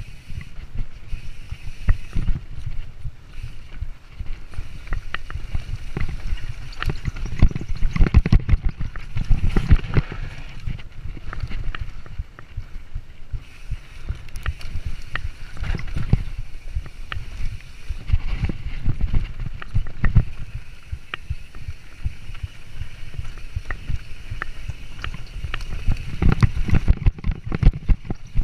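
Mountain bike descending a rooty dirt trail at speed: wind buffets the microphone with a low rumble while the bike clatters and knocks over roots and bumps. The rattling comes thickest about eight seconds in and again near the end.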